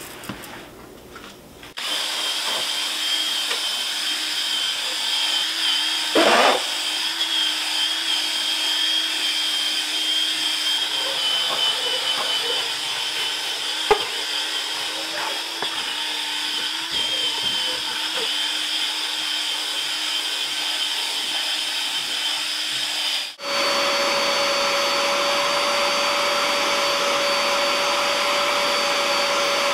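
A power drill spinning a scrub brush over foamed car carpet, its motor whining steadily. About 23 seconds in it cuts abruptly to a carpet extractor's vacuum motor running steadily at a different pitch as the wand draws up the shampoo.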